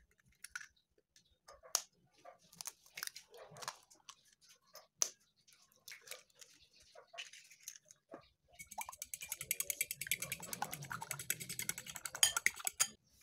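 Eggs cracked on the rim of a ceramic bowl: scattered taps and knocks for several seconds. Then the eggs are beaten fast with a fork against the bowl, a rapid, even clatter of clicks for about four seconds that stops abruptly near the end.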